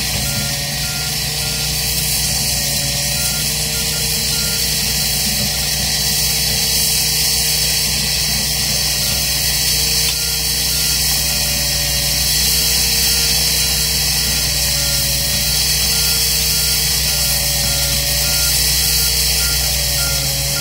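Diesel engines of heavy piling machinery running steadily, with a strong hiss and no hammer blows, and a faint, evenly repeating beep.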